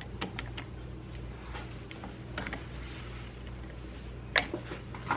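Light metallic clicks and scrapes of hand work prying at the clip that holds a two-stroke piston's wrist pin, with a sharper click about four seconds in. A steady low hum lies underneath.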